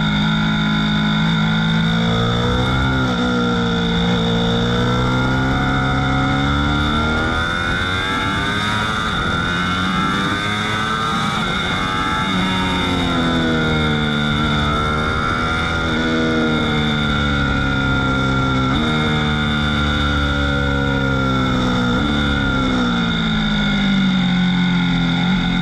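Ducati V4 S motorcycle's V4 engine under hard acceleration. Its pitch climbs and drops suddenly at each upshift, sinks away as the bike slows in the middle, then climbs again through the gears. Wind rushes over the bike-mounted camera.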